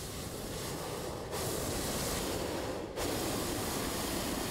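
Hot air balloon propane burner firing: a loud, steady rushing noise that jumps louder about a second in and breaks off briefly midway before going on, as the burner heats the air in the envelope to stand the balloon upright.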